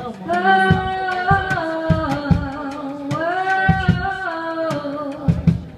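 Women singing long held notes that step and glide between pitches, with drum hits thudding underneath.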